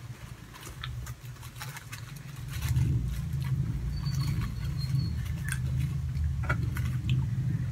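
Light crackling and rustling of a cardboard donut box and its wrapping as an eclair is lifted out by hand. A low steady hum comes in about two and a half seconds in.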